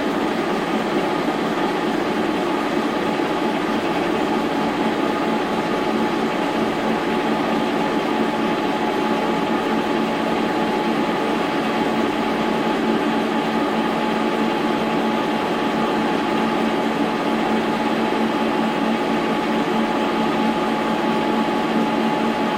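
Brown & Sharpe horizontal milling machine running steadily while drilling a hole in a steel lever. Its motor and gearing give an even hum and whine that holds throughout without a break.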